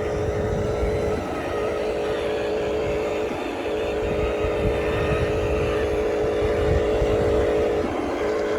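Radio-controlled model construction machines' small electric motors and gearboxes whining steadily. The whine cuts out briefly about a second in, again about three and a half seconds in and near the end, over a low rumble.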